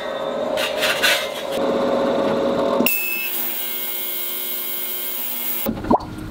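Vevor digital ultrasonic cleaner running, its water bath holding a jar of Evapo-Rust: a steady hissing hum with several held tones that starts suddenly about halfway in and cuts off abruptly near the end. A single light knock follows.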